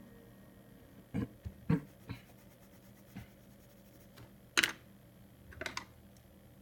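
Coloured pencil working on paper: a handful of short, sharp taps and scratches, the loudest about four and a half seconds in.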